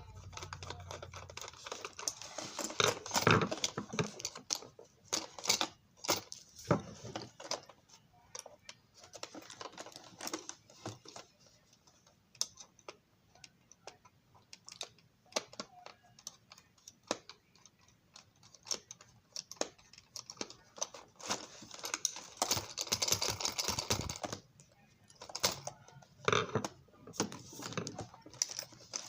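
Light clicks, taps and scraping of small plastic parts and a small tool being handled while a model railroad dome car is taken apart, irregular throughout with a couple of longer scratchy stretches.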